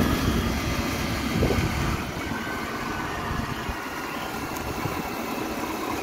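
Electric motor and generator rig whirring as it spins down after the drive motor is switched off, the hum fading over the first few seconds. The slowing generator is what makes its output voltage drop.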